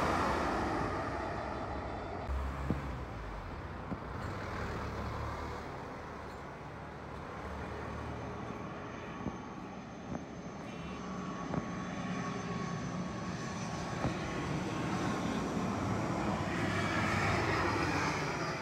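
Airliner engine noise from aircraft on low approach. A passing jet fades away over the first couple of seconds, then a twin turboprop drones with a faint steady whine, swelling near the end.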